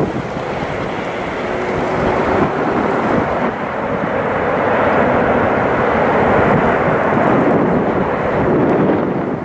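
Distant jet-engine roar from an Airbus A330-200 on its landing roll. It swells over the first few seconds, holds strong, and eases off just at the end, typical of the engines spooling up in reverse thrust to slow the aircraft after touchdown.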